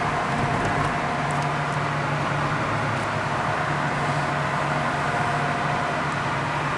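Car driving through a road tunnel, heard from inside the cabin: steady road and engine noise with a low, even hum and a faint higher steady tone.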